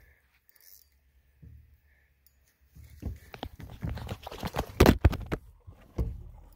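Phone handling noise: rough knocks and rattles as the phone is jostled while the landing net is worked, with one loud knock about five seconds in. The first few seconds are nearly silent.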